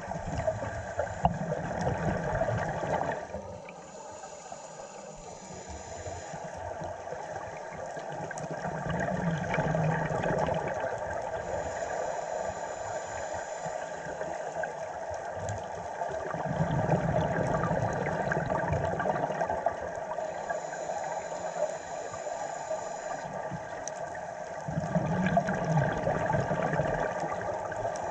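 Scuba diver breathing through a regulator underwater: slow breaths, each exhalation a burst of bubbling about every eight seconds, with quieter stretches between.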